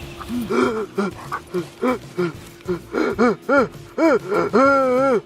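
Siberian husky whining and yipping in a rapid run of short rising-and-falling calls, drawing out into longer whines near the end, as it reacts to its owner collapsed on the ground.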